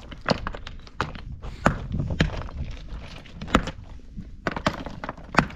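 Irregular knocks and thuds of hands-on work, about ten sharp hits spread unevenly over a few seconds, over low background noise.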